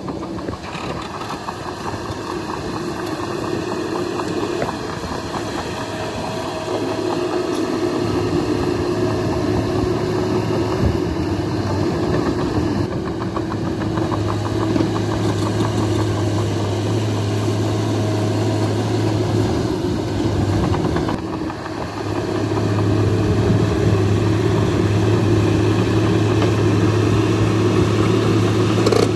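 Bulldozer's diesel engine running under working load, a steady heavy drone that builds over the first several seconds, drops briefly about 21 seconds in, then picks up again.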